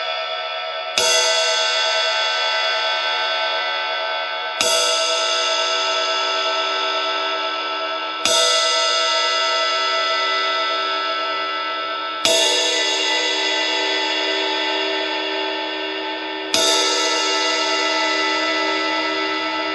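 Paiste Alpha 20-inch Power Ride cymbal struck alone five times, about every four seconds. Each hit rings on with many steady, high pingy overtones that slowly fade before the next strike.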